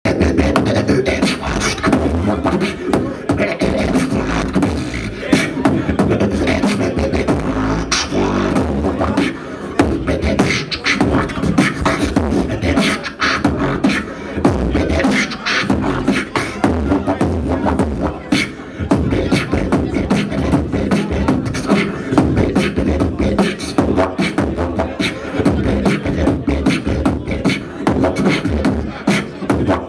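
Beatboxing through a microphone and PA in a battle round: fast kick, snare and hi-hat sounds made with the mouth over a continuous hummed bass line, without a break.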